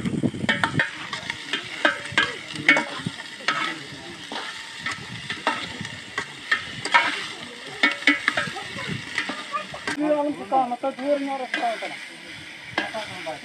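A ladle stirring mutton curry in an aluminium pot over a wood fire, with repeated scrapes and knocks against the pot as the curry sizzles.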